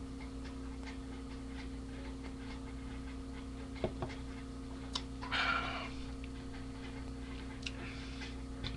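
Steady electrical hum with a few sharp clicks and a short noisy burst about five seconds in.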